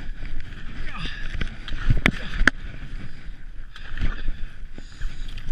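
Skis hissing and swishing through deep powder snow during a tree run, with a low rumble of motion throughout. Two sharp knocks about two seconds in.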